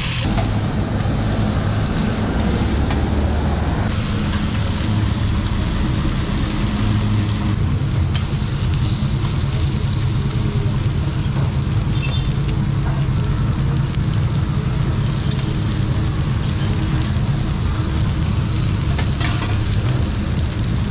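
Meat sizzling on a hot cast-iron sizzling plate: a steady frying hiss over a low, continuous rumble.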